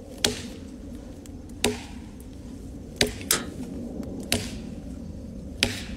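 Axe chopping into a fallen tree limb: six sharp strikes, about one every second and a half, with two in quick succession near the middle.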